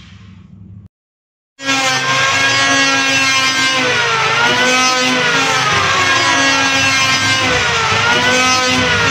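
Electric hand planer (ketam listrik) motor starting abruptly after a moment of silence and running with a loud whine, its pitch sagging and recovering twice.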